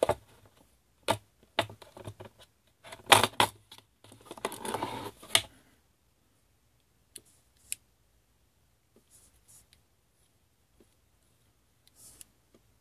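Hard plastic case of a Mitutoyo digital caliper being opened and the metal caliper lifted out, a run of clicks and rattles over the first few seconds. After that come only a few faint clicks as the caliper is handled.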